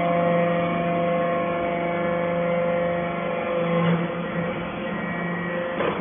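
Hydraulic power unit of an aluminium chip briquetting press running: its electric motor and pump make a steady hum with several held tones, with two light knocks about four seconds in and near the end.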